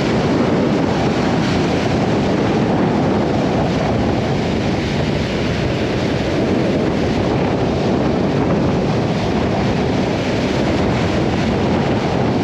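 Strong force 4–5 wind buffeting the microphone: a loud, steady rumbling rush that drowns out other sounds.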